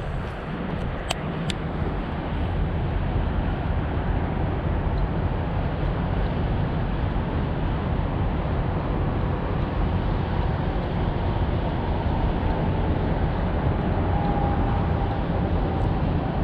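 Steady low rumbling outdoor noise, with a couple of faint clicks about a second in.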